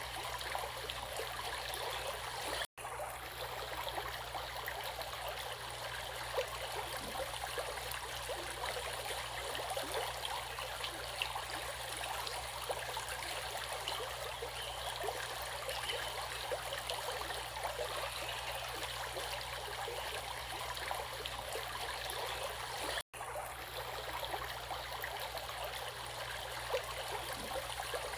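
Running water of a stream, a steady flowing and trickling, broken by two momentary gaps of silence: one about three seconds in and one near the end.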